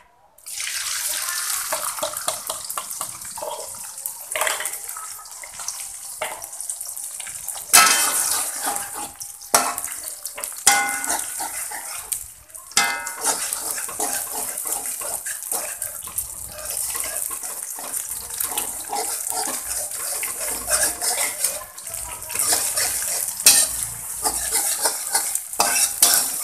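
Beaten eggs sizzling in hot oil in a wok, starting about half a second in as they hit the pan, while a metal spoon stirs and scrapes them against the wok with repeated clinks.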